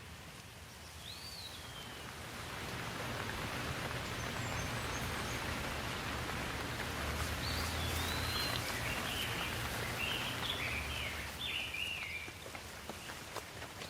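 Steady rainfall hissing, swelling a couple of seconds in and easing again near the end, with a bird chirping over it a few times, mostly in the second half.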